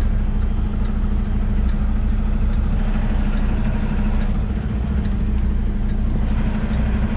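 Semi-truck's diesel engine running steadily at low speed while the rig is being backed, a constant low drone with faint regular ticks over it.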